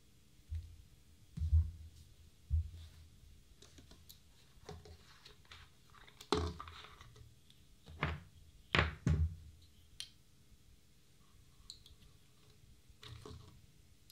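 A hammer and other small objects handled on a hard floor: three dull thumps in the first three seconds, then a cluster of sharper knocks and clacks about midway.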